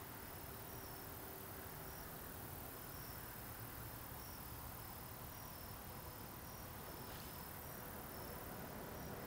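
Faint outdoor ambience: an insect, cricket-like, chirping with short high chirps repeating about once a second, over a low steady rumble.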